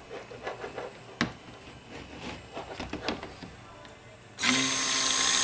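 Electric immersion stick blender switched on about four seconds in and running steadily in cold-process soap batter, blending in the colour. Before that there are only a few light knocks.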